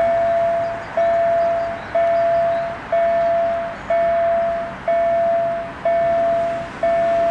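Railway level-crossing warning bell ringing steadily, about once a second, each ring a single clear tone that fades before the next strike.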